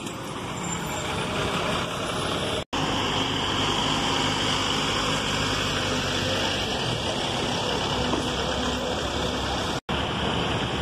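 City buses driving past close by, a steady engine-and-road rumble, broken twice by a very short gap.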